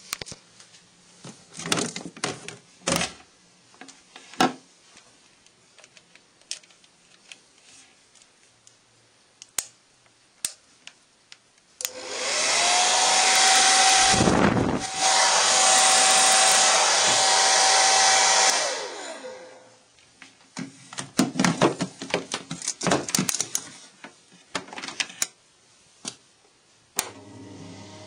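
Hand-held hair dryer switched on: its motor whine rises as it spins up, then it blows steadily for about seven seconds before being switched off and winding down. Before and after, scattered clicks and knocks of it being handled.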